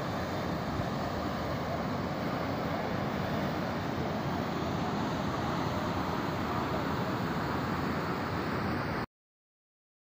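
Mountain waterfall and stream rushing over rocks, a steady loud rush of water that cuts off suddenly about nine seconds in.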